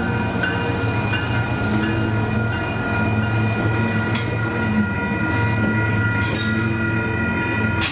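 A TriMet WES diesel multiple-unit railcar running slowly past, its engine giving a steady low hum. A grade-crossing bell rings over it at a regular pace. There are brief hissing squeals about four seconds in and again around six to seven seconds.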